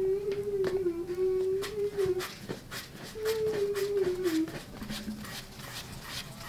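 A person humming a wavering tune in two long phrases. From about halfway, soft quick pats of hands shaping dough on a wooden board, about three a second.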